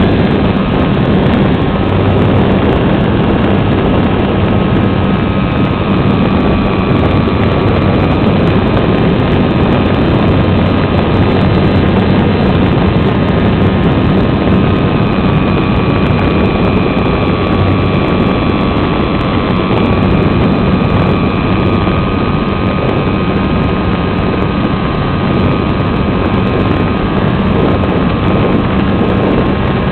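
Electrified SIG Riser RC model plane in flight, heard from on board: its electric motor and propeller run with a steady whine under a loud rush of wind on the microphone.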